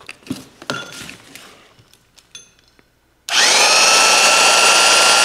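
A few light clicks, then about three seconds in a freshly rewired corded reciprocating saw (Sawzall) switches on with a quickly rising whine and runs steadily at full speed, running free without cutting.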